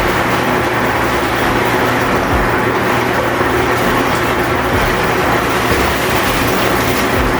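Hot tub jets and pump running: a steady rush of churning water over a low, even motor hum.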